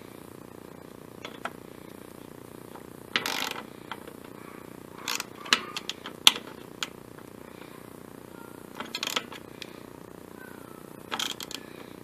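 Socket-wrench ratchet clicking in short bursts, about six times, as a bolt on the mower's engine is tightened down. A faint steady low hum runs underneath.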